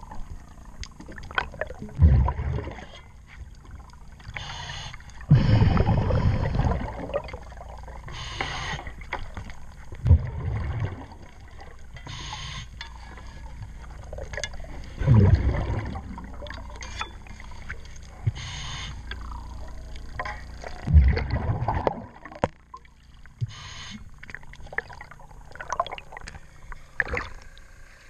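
Diver breathing through an underwater regulator, close to the microphone: a short hissing inhalation, then a louder bubbly rumble of exhaled air, repeating every few seconds.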